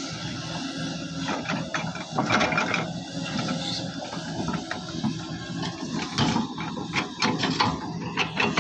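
Excavator digging: its diesel engine runs steadily under irregular clanks and scraping from the bucket and steel working against earth and stone.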